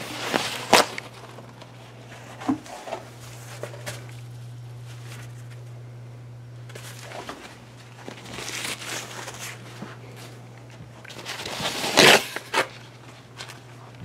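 Handling and movement noise: rustling and scuffing with a sharp knock just under a second in and the loudest rustle about twelve seconds in, over a steady low hum.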